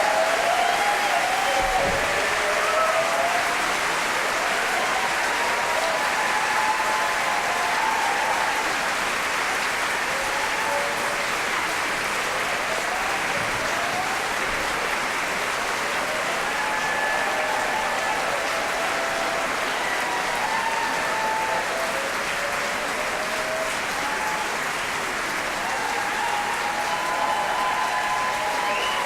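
Large audience applauding steadily after an a cappella chorus performance, with scattered cheering voices above the clapping.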